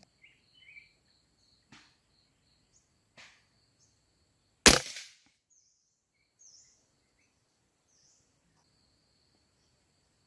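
A single sharp shot from a scoped rifle, fired at a small bird about halfway through, with two much fainter clicks before it.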